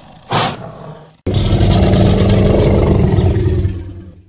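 Spinosaurus roar sound effect: a deep, growling roar that starts suddenly about a second in, holds for about three seconds and fades away. Before it, a short loud burst of noise over a low rumbling background.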